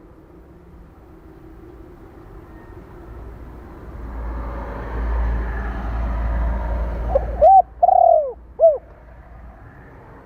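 Spotted dove cooing one phrase of four notes near the end, the third note drawn out longest. Before it, a rumbling noise swells over a few seconds and stops abruptly just as the cooing starts.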